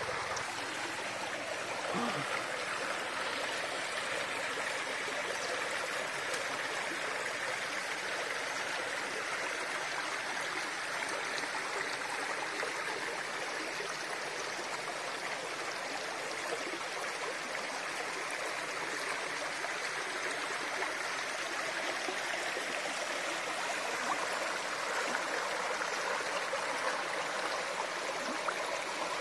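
Shallow stream running steadily over stones and pebbles, an even rush of water.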